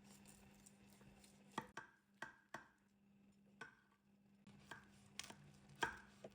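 Knife cutting food, with about a dozen faint, irregular taps and knocks against a board or dish, over a faint steady low hum.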